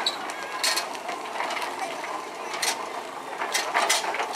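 Short, sharp hissing puffs at irregular intervals of about half a second to two seconds, over a steady background of mechanical noise.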